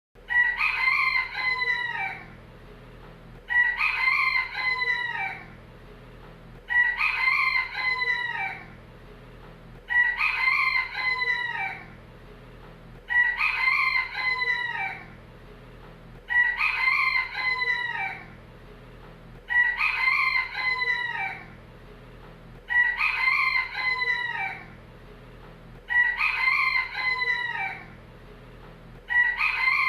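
A rooster crowing cock-a-doodle-doo, each crow about two seconds long. The same crow repeats at even spacing, roughly every three seconds, like a looped recording.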